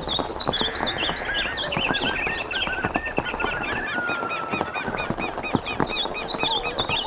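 Several birds calling and chirping at once, with rapid runs of short, repeated arched notes and scattered whistles, over a constant patter of small sharp ticks.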